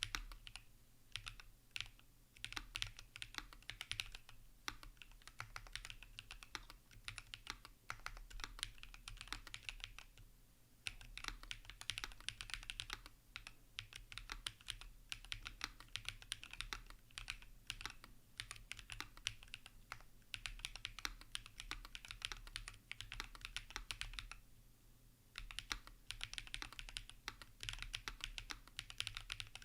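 Typing on a Tenet70 gasket-mount mechanical keyboard with an aluminium plate, plate and PCB foam, Bolsa Supply Zaku switches and CRP R5 keycaps: a fast, continuous run of key strikes, with brief pauses about ten seconds in and again near twenty-five seconds.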